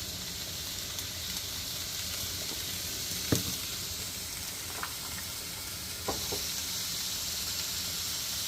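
Ground beef and onion sizzling steadily in a frying pan, sautéing as they brown. A few sharp knocks sound over it, the loudest about three seconds in.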